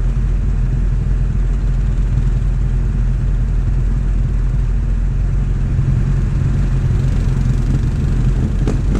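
ATV engines running at low revs, a steady low rumble, as a Yamaha ATV drives slowly off through a mud hole; a brief knock near the end.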